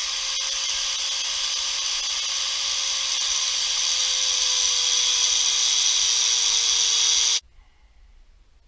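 A small handheld electric power tool runs steadily with a high-pitched motor whine that sags slightly in pitch. It is switched off abruptly about seven seconds in.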